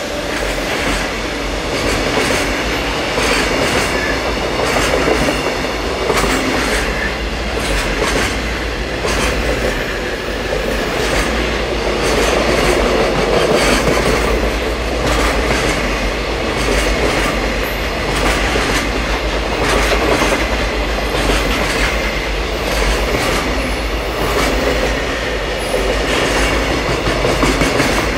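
Long JR Freight container train's wagons rolling past, wheels clattering in a steady run of knocks over the rail joints, with a continuous heavy rumble.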